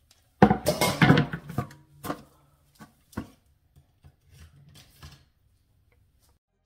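A wooden cutting board handled and set down among kitchen things on a countertop: a loud clatter about half a second in, lasting about a second, then a few lighter knocks.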